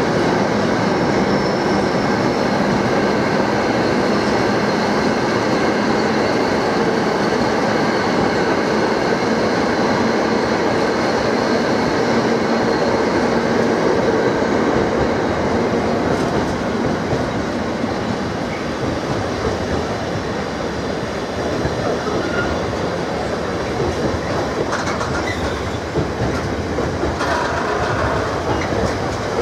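Container wagons of a freight train rolling past at speed: a steady, loud rumble and clatter of steel wheels on the rails, easing slightly about halfway through.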